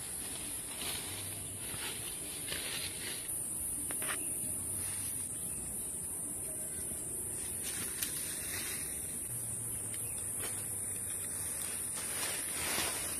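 Steady high-pitched drone of insects, with faint scattered rustles like footsteps on dry leaves.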